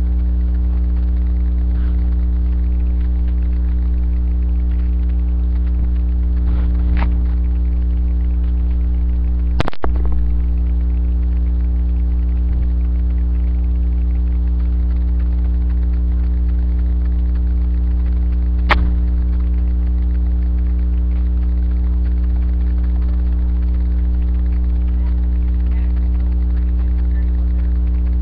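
Loud, steady electrical hum with a stack of even overtones, picked up by a webcam's microphone. A few sharp clicks break through, and the sound cuts out briefly about ten seconds in.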